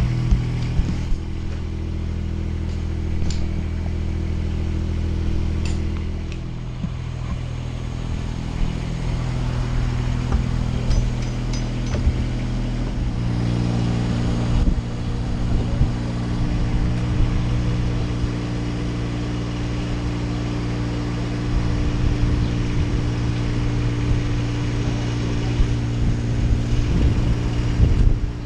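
The engine of a tracked spider lift runs steadily, driving the hydraulics as the boom raises the basket. Its note shifts about six seconds in and again around the middle, as the hydraulic load changes.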